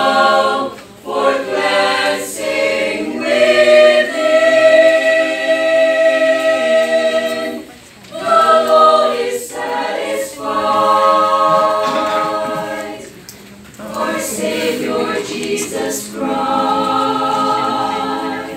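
Small church choir singing a gospel hymn a cappella in harmony, in phrases of long held chords with short breaks for breath between them.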